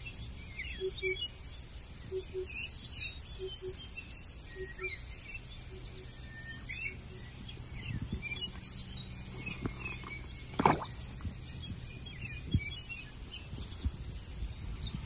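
Small birds chirping and twittering, with a repeated low two-note call in the first half and one brief, sharper, louder sound about two-thirds of the way through.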